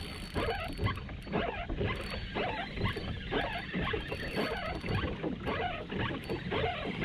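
Kayak being driven quickly through the water: rhythmic splashing strokes, about two a second.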